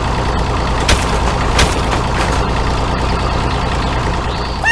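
Tractor engine idling steadily, with two short sharp clicks about a second and a second and a half in, and a brief rising squeak at the very end.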